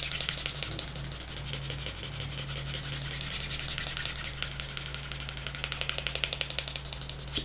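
Edge of a leather wallet piece being rubbed rapidly back and forth by hand, a fast run of even rubbing strokes as the edge is finished. A steady low hum sits underneath.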